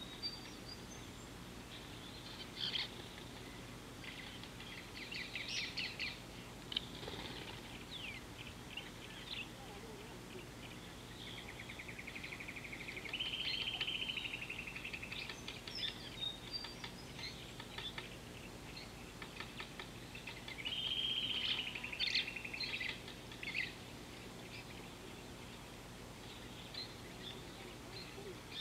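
Wild birds chirping and calling, with a rapid trilled call of two to three seconds heard twice, over faint steady background noise.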